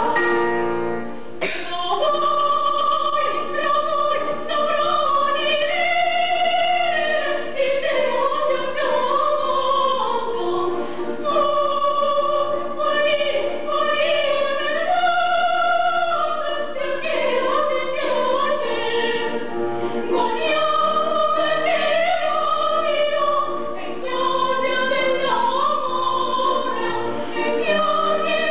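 Two women singing an operatic duet in classical style, long held notes with vibrato. There is a short break about a second in.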